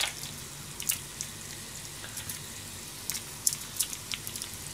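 Garlic frying in oil in a frying pan on low heat: irregular small crackles and pops of spitting oil over a steady low hum.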